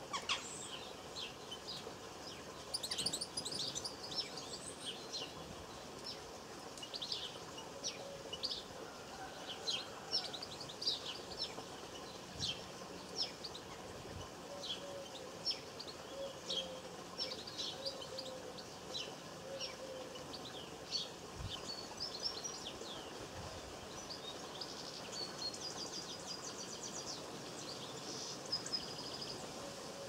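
Small garden songbirds chirping and calling: many short, high notes, with a quick trill about three seconds in and a longer twittering run near the end.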